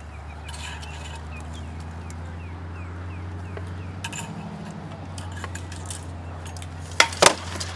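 Two sharp, loud cracks of taped rattan swords striking shield and armour, about a quarter second apart, around seven seconds in, during an SCA heavy-combat bout.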